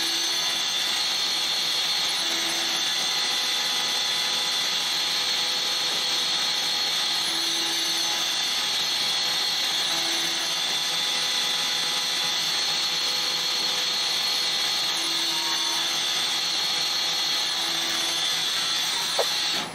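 CNC lathe running steadily while machining a brass hex fitting, a continuous whir of spindle and cutting. A single short click near the end.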